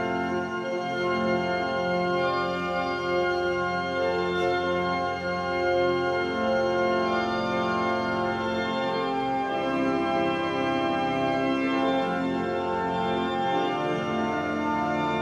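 Organ music playing slow, sustained chords that shift every second or two.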